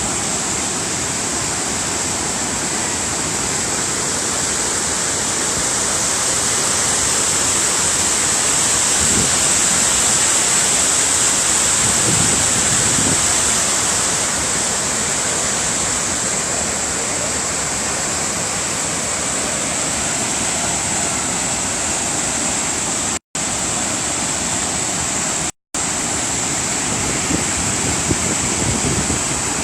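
Waterfall: a loud, steady rush of falling water, cutting out for an instant twice near the end.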